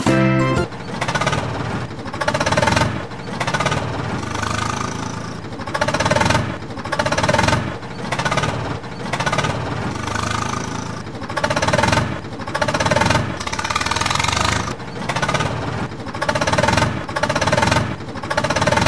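Tractor engine sound effect: a diesel-style engine chugging with a rapid knocking beat, swelling and fading in even waves about once a second, as if pulling under load.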